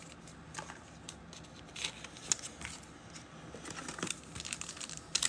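Light rustling and crinkling of trading cards and a card-pack wrapper being handled and torn open. It comes as scattered soft clicks and rustles that grow busier near the end.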